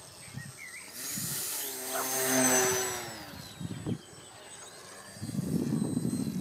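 Electric motor and propeller of a small RC foam flying-wing model plane (a Nutball type) passing close by, loudest about two seconds in, its whine then falling steadily in pitch as it moves away. Footsteps swishing through grass near the end.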